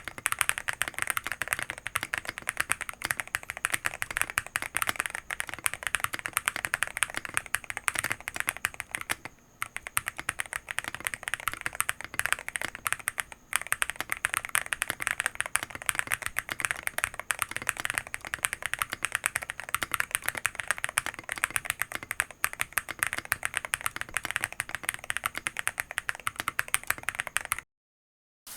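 Continuous fast typing on the Akko YU01 resin-cased mechanical keyboard: a dense run of key clacks, broken twice by brief pauses. It cuts off abruptly about a second before the end.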